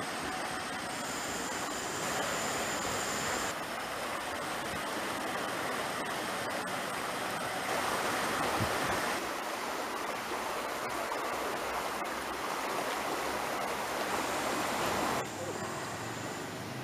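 River water rushing between concrete piers, a steady even rush that drops off abruptly near the end.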